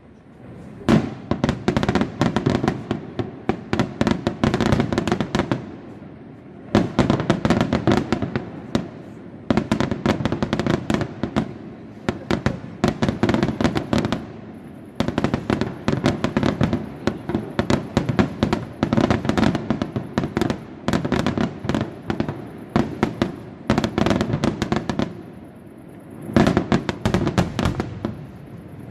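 Aerial fireworks display: dense volleys of many rapid sharp bangs and cracks, coming in barrages a few seconds long with short lulls between them.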